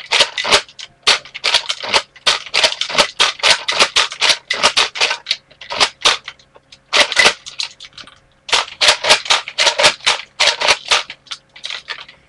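Rapid sharp plastic clicking and clacking from a Nerf foam-dart blaster being worked by hand, about four or five clicks a second in runs, with short pauses about six and eight seconds in.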